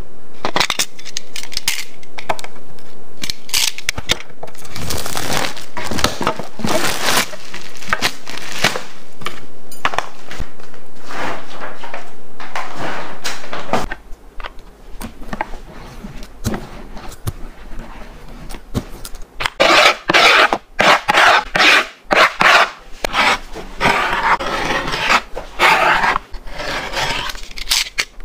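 Hands rubbing and pressing across a skateboard deck and its sheet of grip tape, making repeated irregular scraping strokes. The sound changes near the middle, and the choppiest strokes come in the last third.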